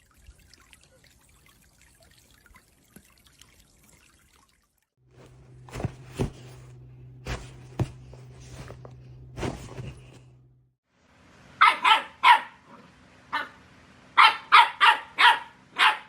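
A dog barking: two sharp barks, then after a short pause a quick run of about six more. Before the barking there is a low steady hum with a few sharp knocks.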